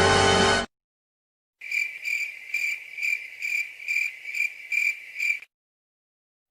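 Cricket chirping sound effect, the stock 'awkward silence' gag: a high chirp repeating about twice a second for nearly four seconds. A piece of music cuts off just before it begins.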